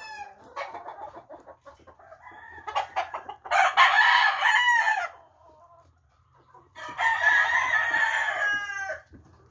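Young Roundhead gamecock crowing twice. The first crow lasts about a second and a half, and the second, longer one starts about three seconds after it.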